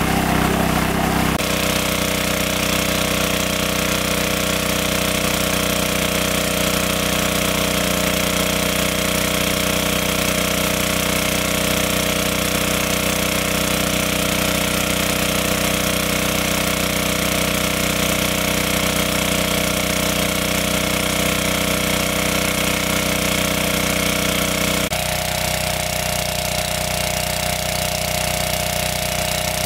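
Portable petrol-engine water pump running steadily at full throttle, pumping pond water out through its discharge hose. The steady engine note changes abruptly about a second in and again near the end.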